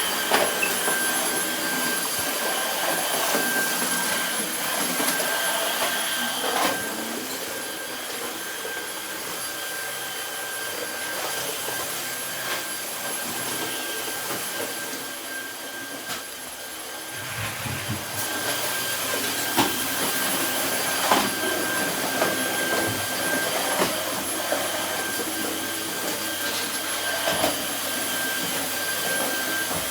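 Cordless Dyson stick vacuum running steadily, a high-pitched motor whine over the rush of air, with a few light knocks along the way.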